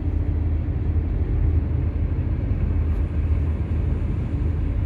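Steady low rumble of road and engine noise inside a moving car's cabin at expressway speed.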